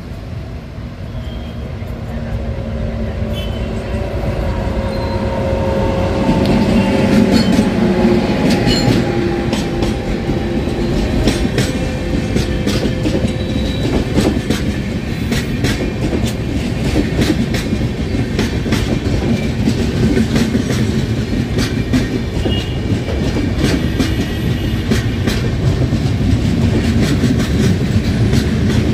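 Electric-hauled express train passing at speed close by. The locomotive approaches and goes past with a whine that falls in pitch about a quarter of the way in. Then the coaches run by with a steady wheel rumble and rapid clickety-clack of wheels over rail joints.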